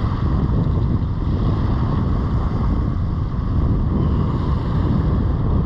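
Steady wind rumbling on the microphone, with ocean surf washing behind it.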